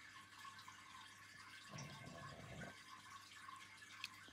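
Near silence: faint steady room hum, with one soft breathy swell about two seconds in and a small click near the end.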